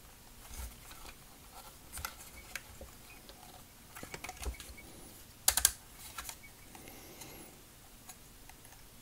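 Plastic parts of a Generation Toy GT-2 Tyrant transforming figure clicking and knocking together as hands handle them and line the leg pieces into place. Scattered light clicks, with a louder quick cluster of clicks about five and a half seconds in.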